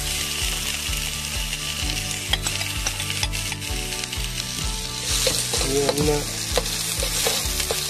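Chopped onions sizzling as they fry in hot coconut oil in a pan, with a spatula stirring them in the second half.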